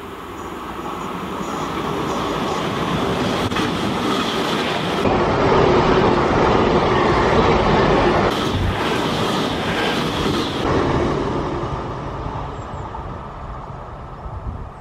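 GWR Intercity Express Train passing through the station at speed: a rumble and rush that builds as it approaches, is loudest for several seconds in the middle while the coaches go by, then fades as it draws away.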